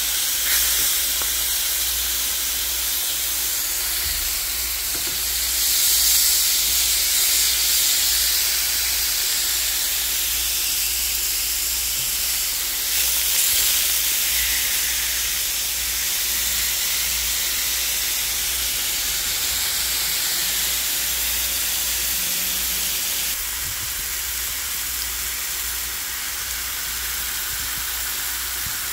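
Seasoned steaks sizzling in hot oil on a ridged grill pan: a steady hiss that swells about six seconds in and eases a little near the end.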